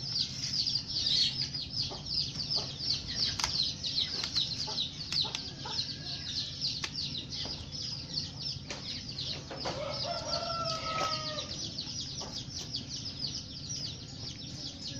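Small birds chirping rapidly and without pause. A chicken gives a drawn-out call about ten seconds in, and a few light clicks and taps come through.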